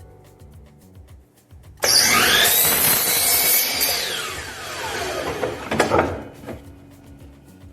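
Electric power saw starting up, cutting through a wooden fence board and winding down as the blade coasts to a stop. The cut starts about two seconds in and lasts about four seconds, its whine rising, holding, then falling.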